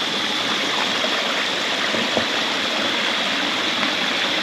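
Stream water running steadily, an even rushing flow with a faint high steady tone over it.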